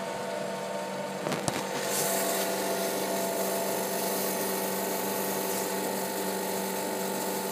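DWM Copeland DKMD-51 semi-hermetic refrigeration compressor of a propane (R290) heat pump running steadily: a hum with several steady tones over a hiss. There is a short knock about a second and a half in, and the sound grows a little louder from about two seconds.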